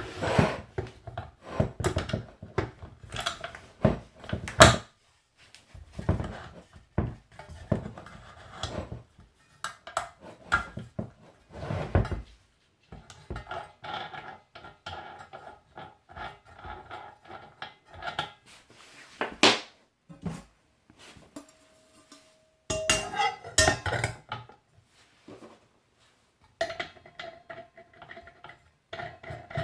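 Unboxing and handling of a 230 mm angle grinder and its parts: irregular clicks, clunks and rattles of hard plastic and metal being picked up and set down, with brief pauses.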